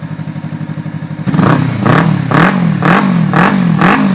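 Kawasaki Ninja 300 parallel-twin engine running through a Roncar 2-Way+ valved exhaust. About a second in, the valve is switched to full sport and the exhaust gets suddenly much louder. From then on it rises and falls in pitch and level about twice a second, a full-bodied sound.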